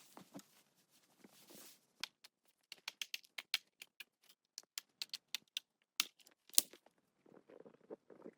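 A run of sharp, irregular clicks and snaps, a few to several a second, with a soft rustle near the end.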